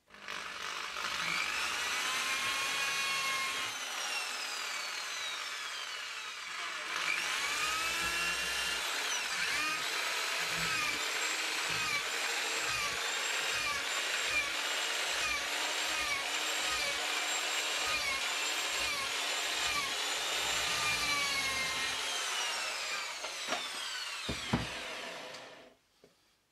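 Corded electric drill running into a plywood panel, its motor whine rising and falling as the trigger is worked, with a pulsing about once a second through the middle. It stops shortly before the end.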